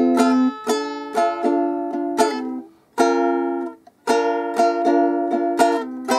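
Electro-acoustic concert ukulele played unplugged: chords strummed in quick strokes, changing chord several times, with two brief breaks about two and a half and four seconds in. The tone is bright and high, which the player puts down to its body.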